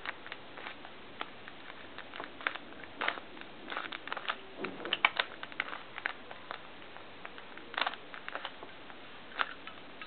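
A plastic 3x3 Rubik's cube turned by hand: irregular clicking and clacking as its layers are twisted round, in quick runs with short pauses, busiest in the middle.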